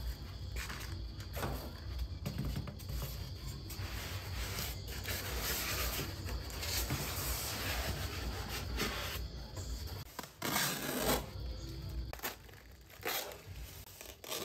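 Polystyrene foam packing insert handled with gloved hands, rubbing, scraping and tearing sounds as the foam is lifted and turned and tape is pulled from it, with a louder burst about ten seconds in.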